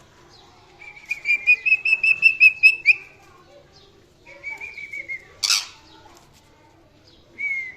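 Indian ringneck parrot calling: a fast run of about ten chattering notes lasting two seconds, then a shorter run, a single loud harsh screech a little past the middle, and one brief call near the end.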